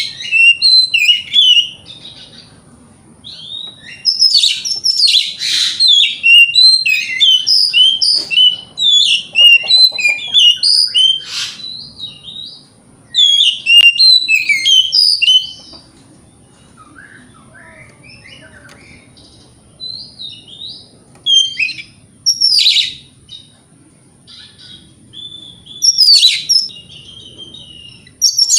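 Oriental magpie-robin (kacer) singing in full voice: rapid, varied runs of sharp whistles and chirps in bursts with short pauses. This is a lure song meant to provoke other male magpie-robins into answering.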